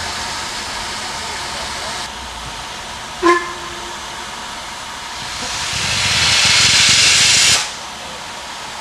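Steam locomotive (LMS Black Five 5305) hissing steam, with one short, low whistle toot about three seconds in. From about five seconds the cylinder drain cocks blow steam in a rising loud hiss, which cuts off suddenly near the end.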